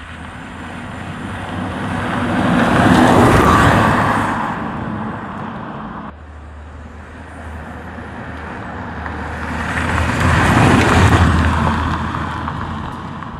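A Renault Clio hatchback drives past twice, its engine and tyres growing louder as it approaches and fading as it pulls away. It is loudest about three seconds in and again about eleven seconds in.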